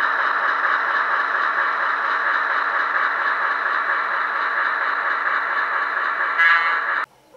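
Onboard sound of an HO-scale Broadway Limited Paragon 2 SW7 switcher model: a steady diesel engine sound played through the model's small speaker, thin and without bass. A short higher tone comes near the end, then the sound cuts off abruptly.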